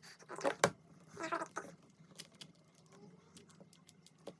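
Brief muttered voice, then a Rubik's cube being turned by hand: an uneven run of quick, light plastic clicks as the layers snap round.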